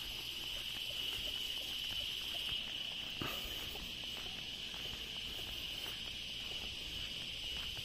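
A steady, high-pitched drone of insects in the surrounding vegetation, with faint footsteps on a dirt track.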